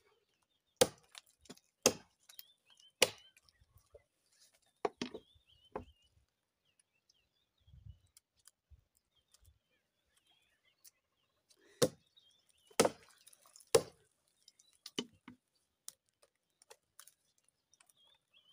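A small hand axe chopping into a standing tree trunk: sharp blows roughly a second apart, a pause of about six seconds midway, then another run of blows.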